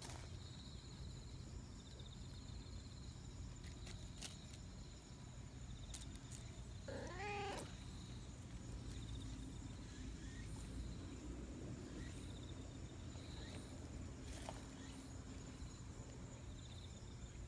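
A cat meows once, a single drawn-out call lasting about a second, about seven seconds in.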